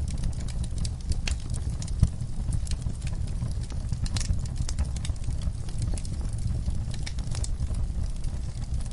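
Wood campfire crackling, with frequent sharp snaps and pops over a steady low rumble; one louder pop comes about two seconds in.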